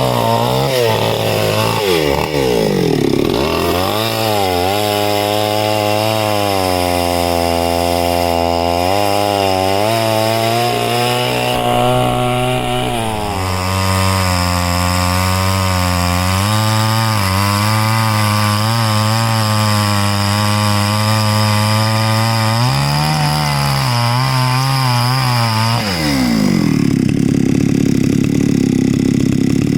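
Chainsaw cutting through jackfruit wood at high revs, the engine note sagging and recovering several times as the chain loads in the cut, then falling to a low idle a few seconds before the end.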